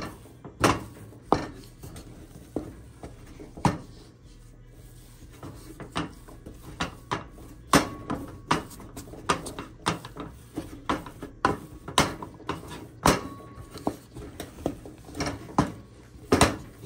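A stirring utensil knocking and scraping against a heavy-bottomed pot as thick churro dough is worked over low heat, in irregular knocks about one or two a second. The dough is being precooked until it comes away from the bottom of the pot.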